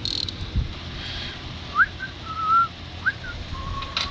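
A person whistling a few short notes: two quick rising slides, a wavering held note between them and a steady note near the end. Light clicks of hand tools come at the start and near the end.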